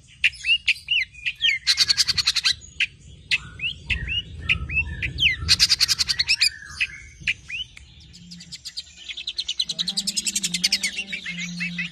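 Long-tailed shrike singing: a string of short, sharp chirps broken by two rapid rattling bursts, then a long fast trill in the last third. It is the bird's loud, full 'nembak' song, packed with mixed calls.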